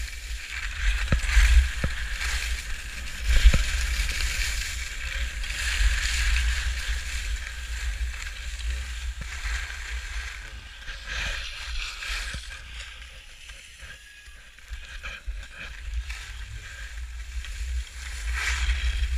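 Skis scraping over packed snow on a downhill run, with wind rumbling on the GoPro's microphone. There are a few short clicks, and the scraping eases for a couple of seconds about two-thirds of the way through.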